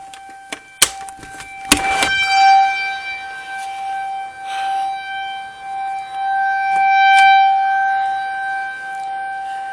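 Tornado warning siren sounding a test at a steady pitch, swelling and fading in loudness every two to three seconds. Two sharp clicks come about one and two seconds in, just before the siren tone rises.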